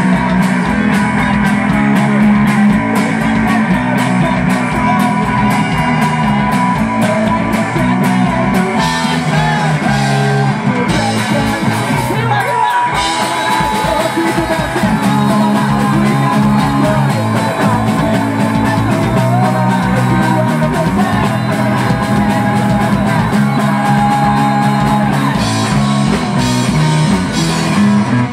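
Live rock band playing loud: electric bass, guitar and drums, with a sung lead vocal. The low end drops out for a moment about halfway through, then the band comes back in.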